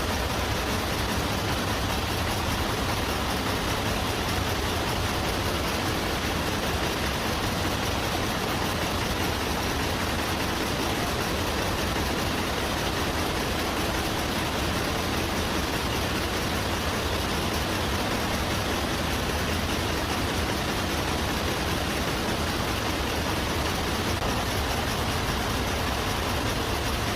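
Nail-making machinery running with a steady, dense mechanical din.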